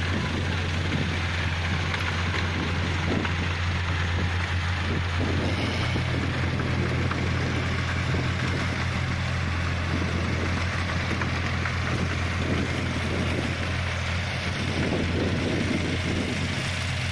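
Hino diesel engine driving a rice mill, running steadily with an even, unchanging hum.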